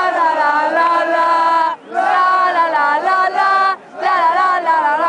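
Football supporters in the stands singing a chant together in long held phrases, each broken off by a short pause, about two and four seconds in.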